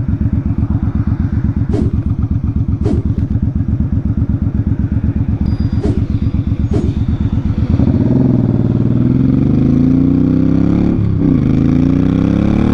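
2005 Suzuki Boulevard C50's V-twin, through Vance & Hines Twin Slash staggered pipes, idling with an even lumpy pulse, with a few sharp clicks over it. About eight seconds in the bike pulls away: the engine revs up with rising pitch, dips briefly at a gear change near eleven seconds, then climbs again.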